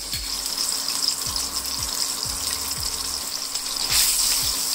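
Battered chicken pieces deep-frying in hot oil with a steady sizzle, over background music with a steady beat.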